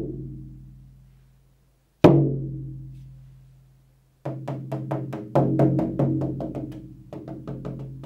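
Large goatskin shamanic frame drum struck with a wooden beater: a deep beat left to ring and fade, a second single beat about two seconds in that also rings for about two seconds, then from about four seconds in a fast, even run of beats, several a second.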